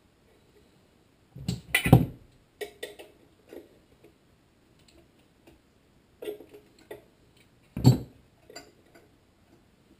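Scattered clicks and knocks of a small-engine carburetor and its rubber fuel line being handled as the line is worked onto the carburetor's fitting, with the loudest knocks about two seconds in and again about eight seconds in.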